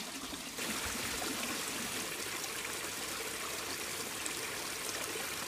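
Steady splashing of water from a pond filter box's outlet falling into a garden pond, with return pipes bubbling at the surface. It is quieter at first and gets louder about half a second in.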